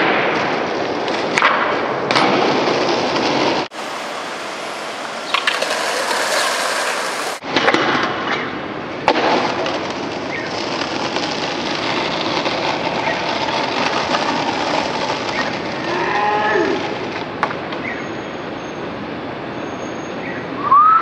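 Skateboard wheels rolling on city pavement, with several sharp knocks of the board popping and landing, over steady street noise. About sixteen seconds in, a brief rising-and-falling tone is heard.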